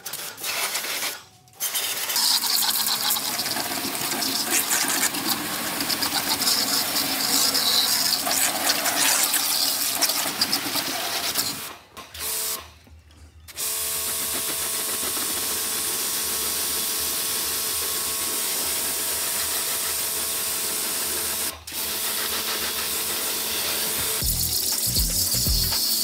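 Pressure washer spraying water, its hiss running over the steady hum of the pump motor. It stops and restarts a few times, briefly about twelve seconds in and again near twenty-two seconds.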